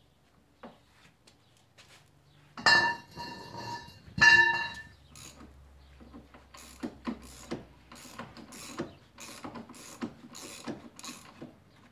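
Two loud, ringing metallic clanks, then a ratchet wrench clicking steadily at about two to three clicks a second as a nut is worked loose.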